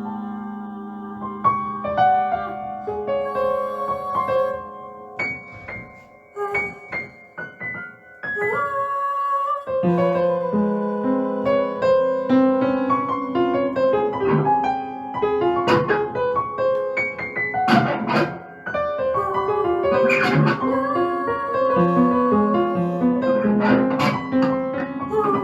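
Piano playing in an experimental ensemble piece: held notes at first, a sparse, quieter stretch of scattered notes, then denser, quicker notes from about ten seconds in.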